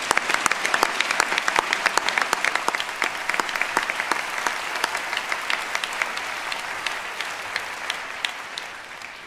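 Audience applauding, many hands clapping together, loudest at the start and slowly dying away toward the end.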